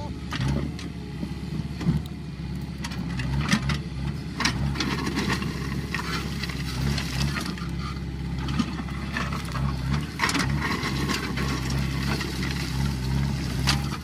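JCB 3DX backhoe loader's diesel engine running steadily under load while its backhoe bucket drags through loose stones, with irregular clattering and scraping of rocks throughout.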